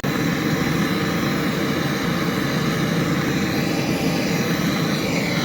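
A machine running steadily: an even, loud drone with a faint steady whine above it.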